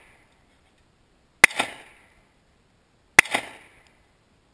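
Two 9mm pistol shots about a second and three quarters apart, each followed by a brief echo.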